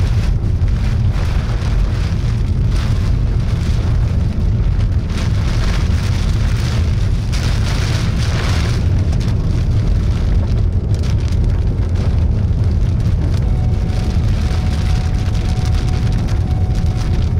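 Rain and gusty wind beating on a vehicle, heard from inside the cab, over a steady low rumble.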